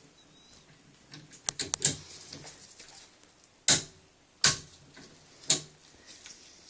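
Click-type torque wrench on an AR-15 barrel nut: a few light metal clicks about a second and a half in, then three sharp clicks about a second apart in the second half, the wrench breaking as it reaches its set torque of 35 ft-lbs.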